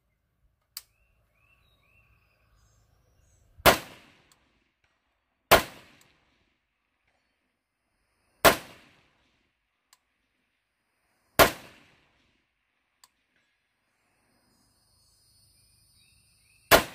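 Five shots from a .224 Valkyrie AR-15-style rifle firing 88-grain Hornady ELD Match factory ammunition, each a sharp crack with a short tail. They come a few seconds apart, the last near the end.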